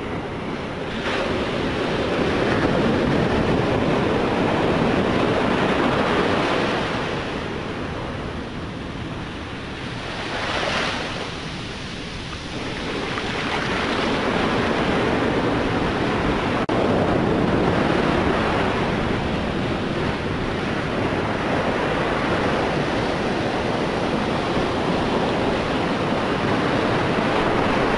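Storm surf at high tide breaking and washing up the beach, a rushing noise that swells and eases in long surges, with one brighter crash about ten seconds in. Wind buffets the microphone.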